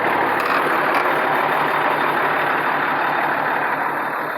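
Mercedes-Benz OM 352 A diesel engine in a Ford F-600 truck idling steadily, still without its turbocharger, with an even low pulsing; it gets a little quieter near the end.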